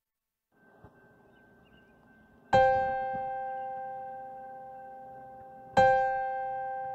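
Piano music: two notes or chords struck about three seconds apart, each ringing out and slowly fading, over a faint hiss.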